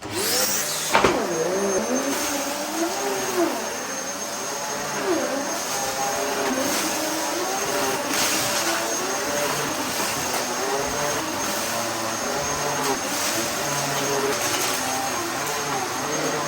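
Dyson DC14 upright vacuum cleaner's motor running at full suction. It winds up quickly in the first second, then runs steadily, with a lower hum whose pitch rises and falls every second or so.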